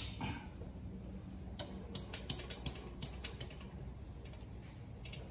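A run of sharp metallic clicks, about eight in under two seconds starting a second and a half in, as locking pliers clamped on a broken stud are worked back and forth in the cylinder head.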